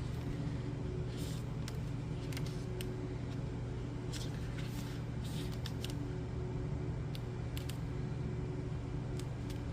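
Pages of a paper guidebook being leafed through: short, scattered rustles and flicks of paper over a steady low hum.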